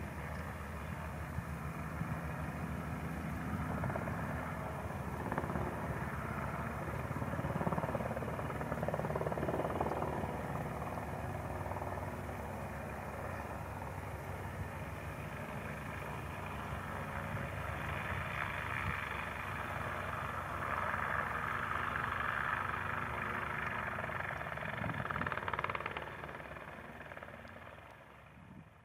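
Robinson R22 light helicopter flying at a distance: a steady rapid rotor chop over piston-engine drone, rising and falling in level as it manoeuvres. The sound fades out at the very end.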